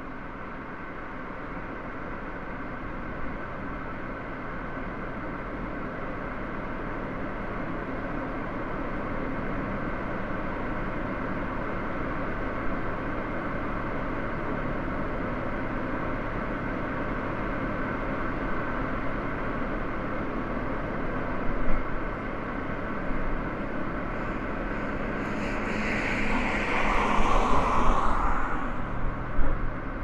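Car driving: steady engine and road noise that grows slowly louder, with a louder rushing sound swelling and fading near the end.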